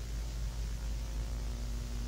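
Steady videotape static: an even hiss over a low rumble, with a faint steady hum.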